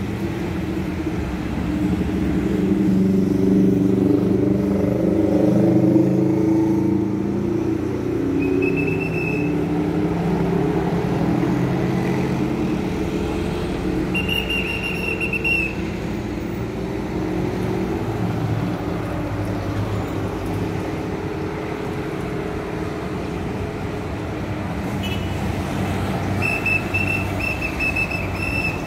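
Street traffic: motor vehicles passing on the road, with the engine noise loudest a few seconds in. A high, steady whistle-like tone sounds three times, the last one the longest.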